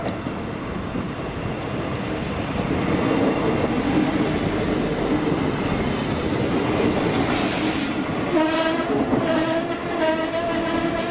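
PESA Link diesel railcar passing close by at speed: engine and wheels on the rails growing to a loud rush, with a short hiss about two-thirds of the way through. Near the end a train horn sounds two long blasts.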